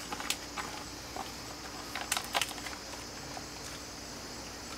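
A few light taps and clicks from handling a backpack sprayer and a pouch of powder, over a faint steady hum.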